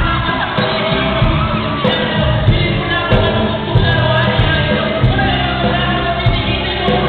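Live rock and hip-hop band music played loud through a hall's sound system, with amplified vocals over a steady beat and audience members shouting along.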